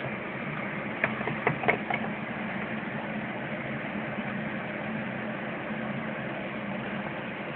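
Steady low hum with hiss, and a quick run of a few sharp clicks or taps about a second in.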